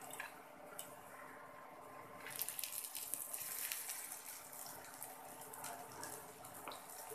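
Khesari dal fritters sizzling and crackling in hot oil in a wok, the sizzle growing louder from about two seconds in as they are turned over with a spatula and wooden spoon. A couple of light clicks from the utensils.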